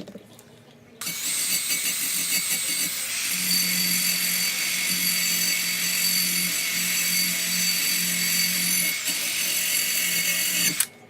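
Electric rotary power tool running steadily with a high whine, used to clean metal parts. It starts suddenly about a second in, a lower hum joins after a couple of seconds as the work goes on, and it cuts off abruptly near the end.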